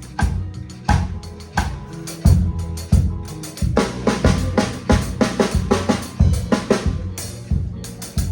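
Music: a drum kit playing a steady beat over a bass line, with a run of quicker hits in the middle.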